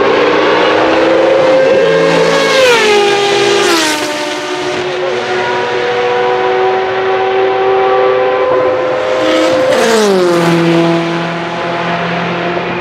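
Group C prototype racing cars at full throttle flying by, two passes, each engine note holding high and then dropping sharply in pitch as the car goes past, first about three seconds in and again about ten seconds in.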